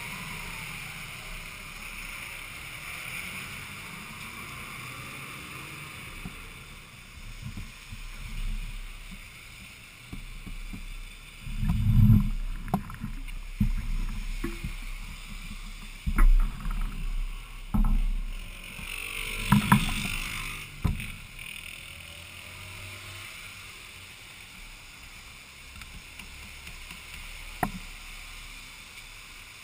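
An action camera being handled: a cluster of sharp knocks and bumps midway through, over a steady background hiss, with one more click near the end.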